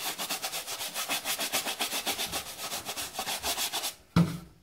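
A stiff brush scrubbing a Nike Air Max 97 trainer in rapid back-and-forth strokes with baking soda solution, bristles rasping on the shoe. The scrubbing stops about four seconds in, and a brief low sound follows.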